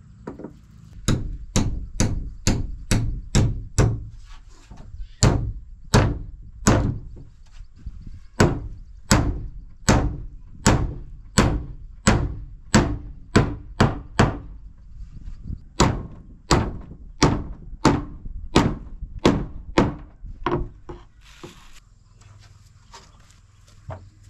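A long series of heavy, evenly paced blows, about one and a half to two a second with a couple of short pauses, stopping about three seconds before the end.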